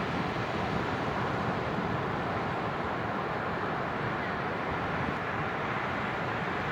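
Atlantic surf washing onto the beach: a steady rushing noise with no distinct breaks.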